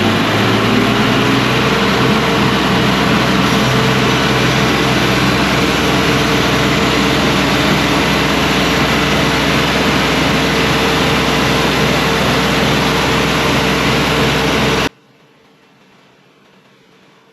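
Cook's AC 36 band sawmill running at speed, a loud steady machine noise with a low hum under it. It cuts off abruptly about fifteen seconds in, leaving only a faint background.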